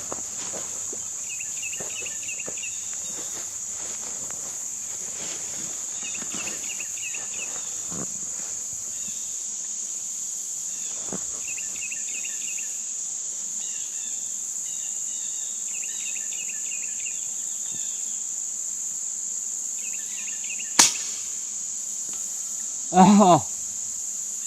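A single sharp crack of an FX Wildcat .25 calibre PCP air rifle firing, about 21 seconds in, over a steady high insect buzz with bursts of chirping trills.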